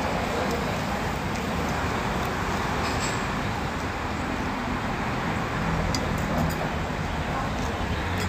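Steady rushing background noise, with a few faint clinks of a metal spoon against a ceramic noodle bowl about six seconds in.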